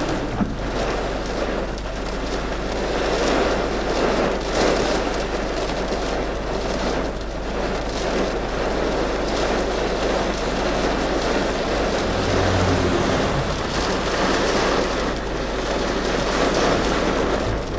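Gusting wind and rain: a steady rushing noise that swells and eases every few seconds.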